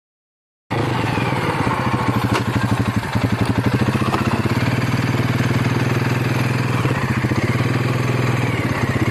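Four-wheeler (ATV) engine running steadily under load, cutting in abruptly just under a second in, with a slight rise in revs about three seconds in.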